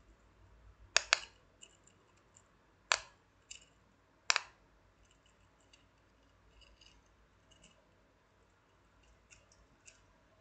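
Sharp plastic clicks from a simple dimple fidget toy being handled: two close together about a second in, then single ones about three and four and a half seconds in, with faint small clicks between.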